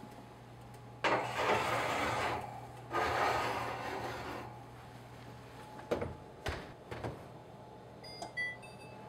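Ceramic baking dish and metal oven rack scraping as the dish is slid onto the rack, in two scraping spells, followed by a few knocks. Near the end comes a quick run of short electronic beeps of different pitches, as from an oven's control panel.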